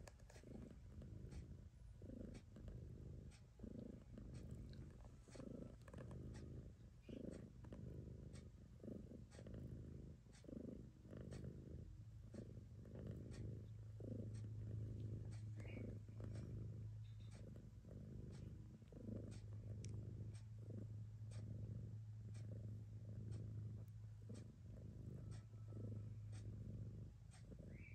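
Mother cat purring steadily while nursing her newborn kittens, a low purr that pulses with each breath about every two-thirds of a second and grows stronger about halfway through.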